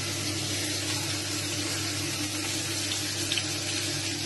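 Fish frying in hot oil in a pan, a steady sizzle with a couple of small pops about three seconds in, over a steady low hum.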